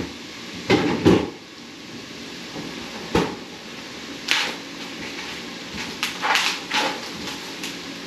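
Household knocks and bangs, like a door or cupboard being opened and shut: two heavy knocks about a second in, a sharp thump about three seconds in, then a few short rustling bursts as a tray of chicken breasts in plastic packaging is handled.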